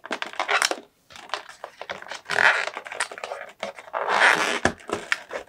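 Cardboard and plastic packaging handled by hand: scraping and rustling in three louder spells, near the start, in the middle and about four seconds in, with scattered light knocks and clicks.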